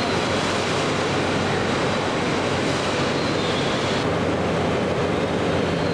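Steady, loud running noise of a West Kyushu Shinkansen Kamome (N700S) train standing at the platform, its onboard equipment and cooling blowers running at rest. A low hum sits under an even hiss, and the hiss thins about four seconds in.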